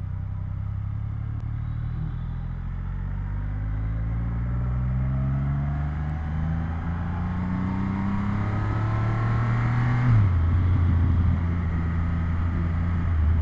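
Triumph Rocket 3 R's 2.5-litre inline-three engine accelerating, its pitch rising steadily through a gear. About ten seconds in, the pitch drops suddenly at an upshift, and the engine then runs on steadily.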